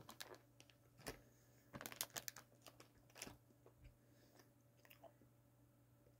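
Chewing of a Hostess chocolate chip mini muffin close to the microphone: scattered soft mouth clicks and smacks, busiest about two seconds in, thinning out after about three and a half seconds.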